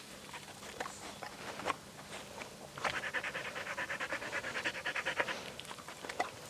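Dog panting quickly, pausing early on with a couple of faint clicks, then panting again from about three seconds in.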